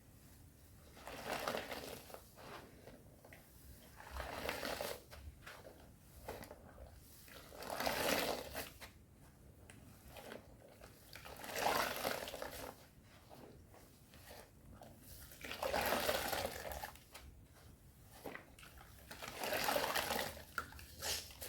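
Thick soap foam with powder worked in wet hands, squelching and hissing in slow strokes that swell and fade roughly every four seconds.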